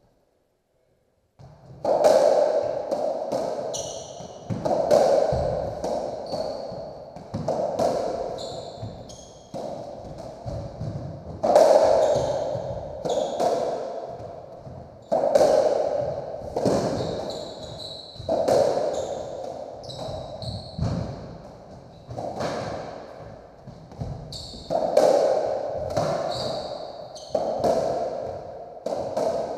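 Racketball rally on a squash court: the ball is struck by rackets and smacks off the walls in a long series of echoing hits about a second apart, starting about a second and a half in. Between the hits, trainers squeak on the wooden floor.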